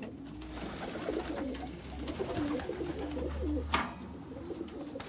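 Racing pigeons cooing, their low wavering coos overlapping. One sharp click sounds about three-quarters of the way through.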